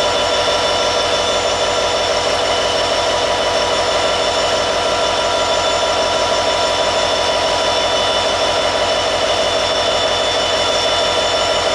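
Diesel-electric locomotive, a Norfolk Southern SD70ACU with a 16-cylinder EMD 710 two-stroke engine, running steadily close by: a high steady whine over a low, even engine beat, with no change in revs.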